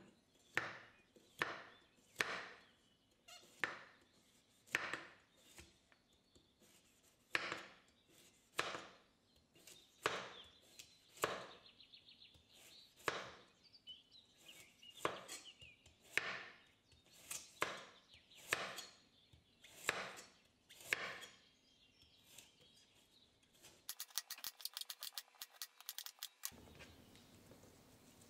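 Santoku knife slicing a carrot on a wooden cutting board: crisp, separate knocks of the blade meeting the board, roughly one a second. Near the end comes a short burst of fast, fine clicks.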